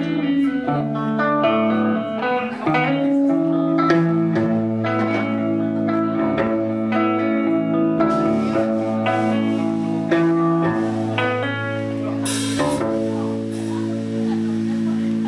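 Live rock band playing an instrumental passage: electric guitars picking ringing notes over a steady bass guitar line.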